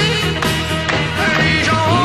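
Music: a song with a steady beat and held bass notes, with a voice singing a line from about halfway through.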